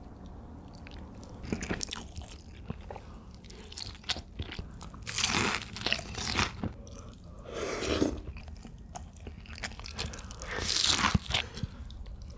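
A person biting and chewing crunchy food, with a few louder crunches.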